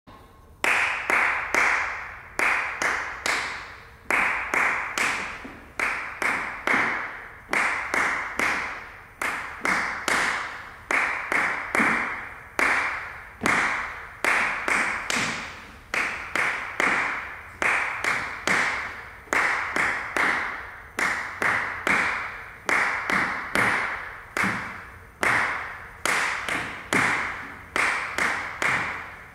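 A steady rhythm of sharp percussive taps, about two to three a second, each with a short ringing decay.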